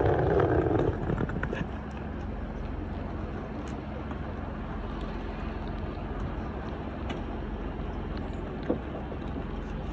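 Diesel multiple unit's underfloor engine running while the train stands at the platform. It is louder for about the first second, then settles to a steady low idling hum. There is one short click near the end.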